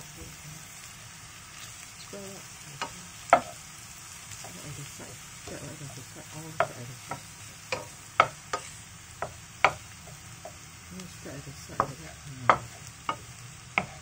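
Chopped green beans sizzling faintly in oil in a frying pan while a wooden spatula stirs them, scraping and knocking against the pan. The knocks come irregularly, more often in the second half.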